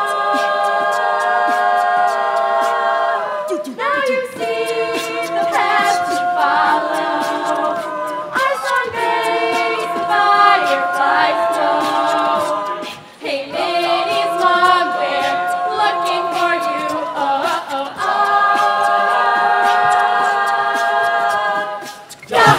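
A group of voices singing an a cappella song, holding sustained chords in close harmony in phrases of a few seconds each, with short breaks between them.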